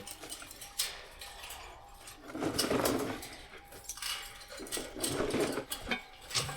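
A farm animal making sounds in two short noisy bouts, about two and a half seconds in and again about five seconds in, with a few faint clicks between.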